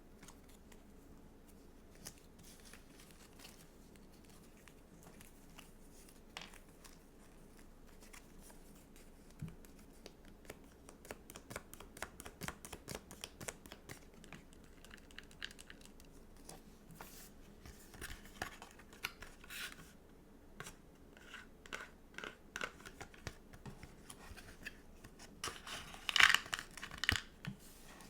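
Stickers and their paper being handled close up: small clicks and crackles of peeling and crinkling, sparse at first and denser after about ten seconds. The loudest crackling comes near the end.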